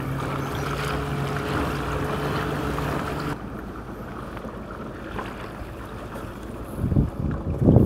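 Native Slayer Propel 13 pedal kayak under way: water washing along the hull, with wind on the microphone. The sound drops suddenly a little over three seconds in, and low gusts of wind buffet the microphone near the end.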